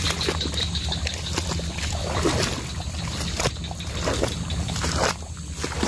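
Water sloshing and trickling, with irregular knocks and rustles, as a hooked lembat (slender walking catfish) is lifted from shallow, weed-covered water and handled.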